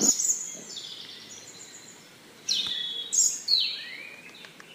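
Birds chirping: a series of short, high calls, several of them falling in pitch. The loudest come about two and a half seconds in and again about half a second later.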